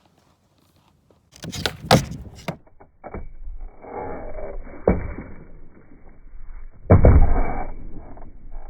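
Skateboard ollies on a practice board: after a near-silent second, several sharp knocks of the tail popping and the board landing, about two, five and seven seconds in, the last the loudest, with scuffing noise between.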